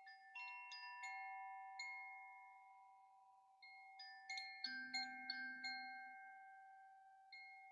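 Quiet background music of sparse, slow, struck bell-like notes, each ringing and fading away, with a small cluster of notes near the start and another about halfway through.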